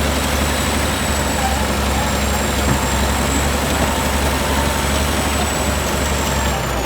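Bulldozer's heavy diesel engine running steadily with a deep rumble, and a thin high whine over it that dips slightly in pitch near the end.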